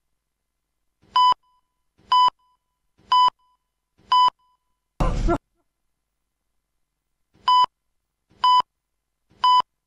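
Film-leader countdown beeps: four short, high beeps one second apart, then a split-second burst of a film's soundtrack, the seven-frame fragment. After a pause of about two seconds the countdown begins again with three more beeps.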